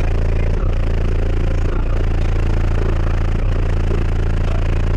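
A car audio system's subwoofers playing very loud, deep bass at a steady level.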